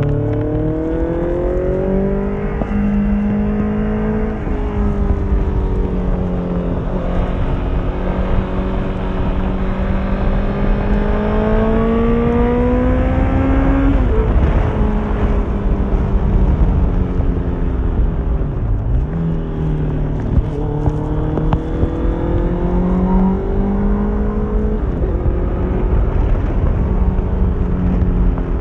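Honda CBR650F inline-four engine through an Akrapovic exhaust under way. The pitch climbs steadily, breaks at each gear change, falls away once about halfway through as the throttle comes off, then pulls up through the gears again.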